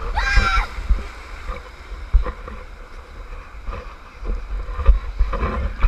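Ocean surf washing around an inflatable raft: water sloshing and splashing against the raft, with a heavy low rumble of water and wind buffeting the microphone. A few sharp knocks, the clearest about two seconds in and near the end.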